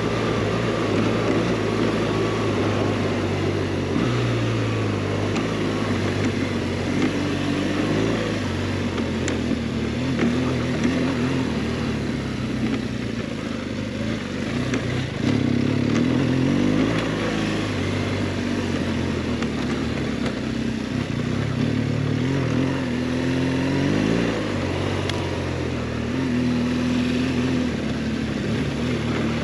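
BMW R 1200 GS boxer-twin engine pulling the motorcycle along a dirt trail. Its revs rise and drop several times with throttle and gear changes.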